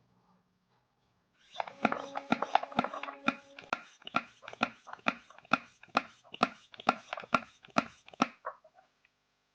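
A series of sharp taps or knocks, a quick flurry starting about a second and a half in, then evenly spaced strikes about two a second that grow fainter and stop near the end.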